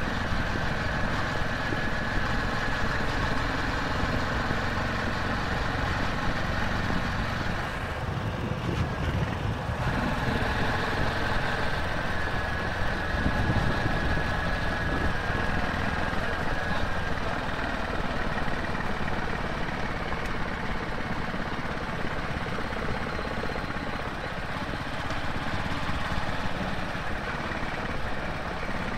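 Royal Enfield Classic 350's single-cylinder engine running steadily as the motorcycle rides along, heard from an onboard camera, with road and wind noise underneath.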